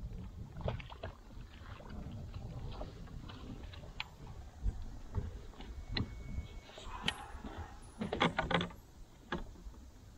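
Scattered clicks, knocks and light splashing from fishing gear and a plastic kayak while a hooked fish is played to the side of the boat, with a quick flurry of them about eight seconds in, over faint wind and water.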